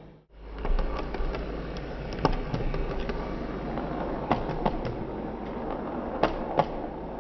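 OO gauge Heljan class 128 parcels unit model train running past, a steady rumble from its motor and wheels on the track, with several sharp clicks.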